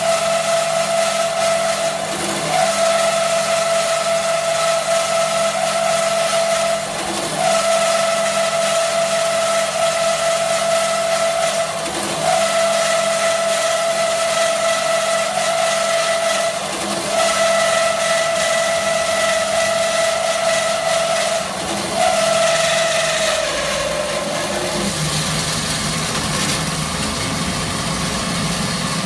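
Metal-cutting band saw running with a steady whine, broken by a short dip and click about every five seconds. Near the end the whine slides down in pitch and dies away as the blade stops, leaving the machine's steady lower hum.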